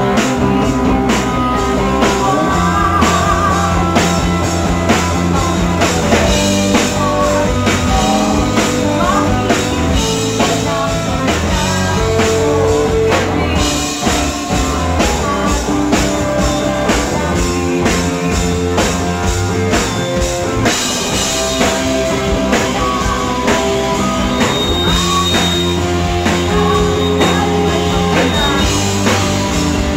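Live rock band playing: electric guitars over a drum kit, with a woman singing. The music runs steadily and loudly throughout.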